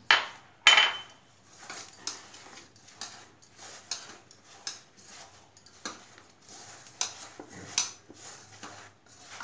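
Hands mixing a dry flour, breadcrumb and mashed raw banana mixture in a stainless steel bowl: irregular soft scraping and rustling with light taps against the metal. Two sharp knocks open it, within the first second.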